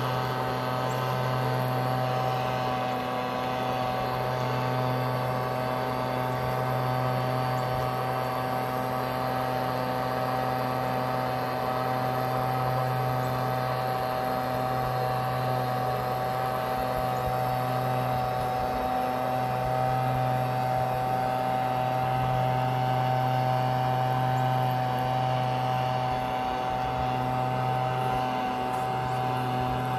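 Gas-powered leaf blower engine running steadily, heard from roughly 150 feet away: an even drone with a steady higher whine above it.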